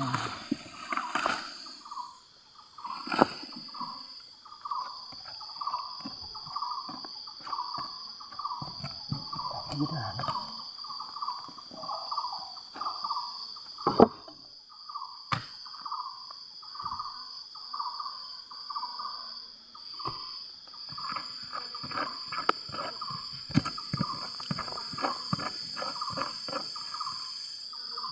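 Outdoor insect drone, a steady high tone, with an animal call repeating about once or twice a second throughout. Now and then there is a sharp knock, and there are spells of water swishing and gravel from a gold pan being worked.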